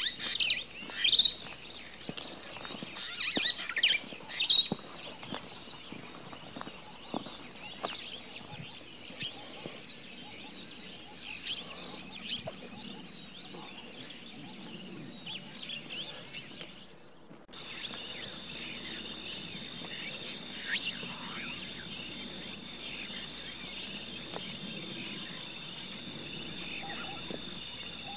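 Wildlife sound recording: birds chirping over a steady high chorus. About 17 seconds in, it cuts abruptly to a louder, steady, evenly pulsing animal chorus.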